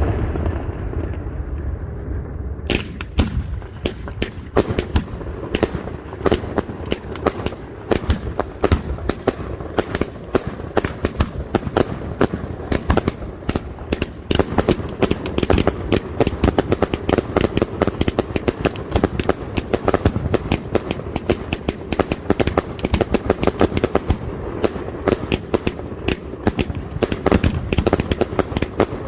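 Castillo aerial fireworks display. A low rumble from earlier bursts dies away, then about three seconds in a dense, rapid crackle of many sharp small bangs starts and keeps going.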